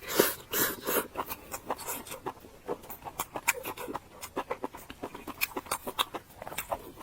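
Close-miked eating sounds: wet chewing and mouth clicks, coming as many short irregular smacks and squelches.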